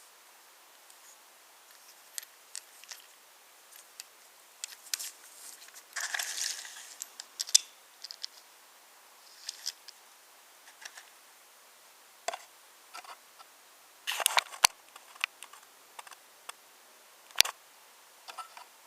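Wooden toy trains and wooden railway track being handled: scattered light clicks, taps and short scrapes, with a few sharper clicks near the middle and toward the end.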